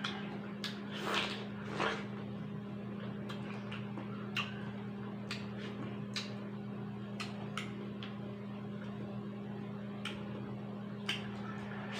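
Eating watermelon: wet, juicy bites and mouth smacks, two louder ones in the first two seconds, then scattered sharp clicks of chewing. A steady low hum runs underneath.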